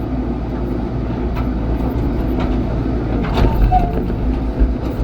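Diesel engine of a heavy digging machine running steadily under work, with a few sharp knocks of rock against the machine's bucket.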